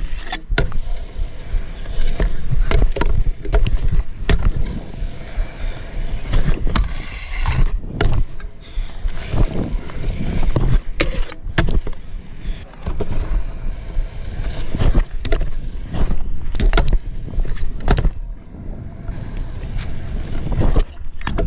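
Pro scooter wheels rolling on skatepark concrete, with many sharp clacks of the deck and wheels landing and striking edges. A heavy wind rumble sits on the rider-mounted camera's microphone.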